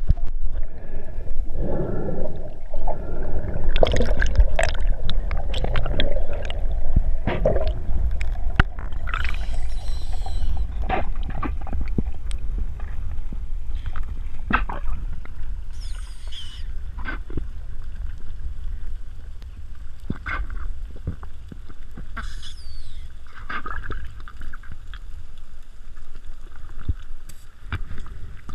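Underwater sound heard by a submerged camera: a steady low rumble of moving water with scattered sharp clicks and knocks, and a few brief high squeaks.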